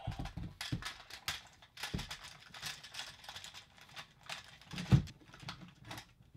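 Irregular clicking and clattering of plastic: a toy dinosaur's head knocking against a LEGO jeep and pulling its roll cage loose, with one louder knock about five seconds in.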